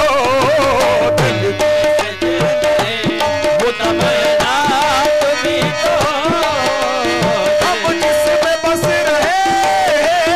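Qawwali music: a voice singing ornamented, wavering lines over long held notes, with tabla beats throughout.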